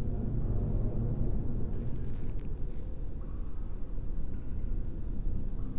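Steady low rumble, with a few faint ticks about two seconds in.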